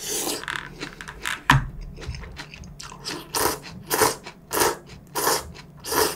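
A person slurping noodles with chopsticks from a bowl held at the mouth, in a run of short sucking pulls, about one every half-second to two-thirds of a second in the second half, with a sharp click about a second and a half in.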